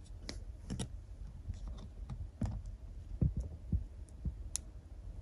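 Fingertips and fingernails tapping and clicking on the small plastic battery connector and cable inside an open Framework laptop while working the connector loose: faint, irregular little clicks.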